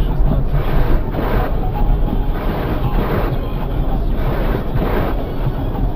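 Blizzard wind buffeting the microphone: a loud, gusting rumble that swells and dips.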